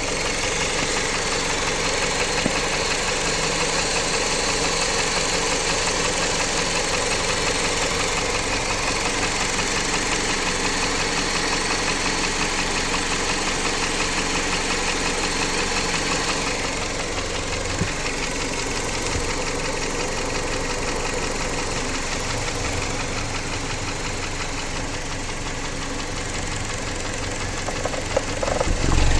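Jeep Patriot's 2.4-litre four-cylinder petrol engine running at a steady speed with a fast, even knocking from inside the engine, an unexplained knock that the owner is trying to diagnose.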